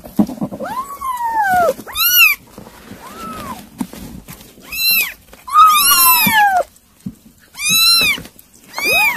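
Kittens mewing over and over, about seven high-pitched cries that rise and fall, the longest around a second, with small clicks between them.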